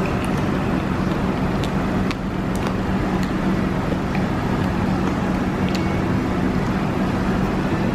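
A steady low mechanical hum over a constant rumble, with a few faint clicks scattered through it.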